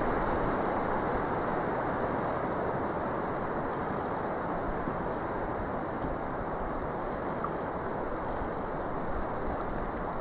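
Wind buffeting the microphone over a choppy lake, with the water's wash underneath, fading slightly as it goes.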